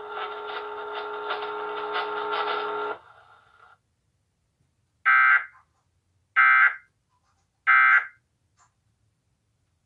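A steady buzzing tone cuts off about three seconds in. After a short silence come three short, identical bursts of shrill digital data about a second and a quarter apart: the Emergency Alert System end-of-message (EOM) signal, which marks the end of the alert.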